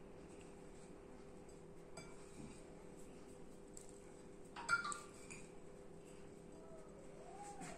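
Quiet room with a faint steady hum, broken once a little past halfway by a single short clink of a ceramic plate that rings briefly.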